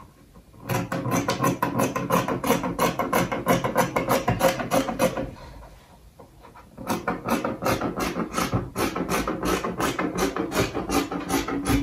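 Dressmaking scissors cutting through duchess satin fabric in a rapid run of snips, several a second, pausing for about a second and a half midway before carrying on.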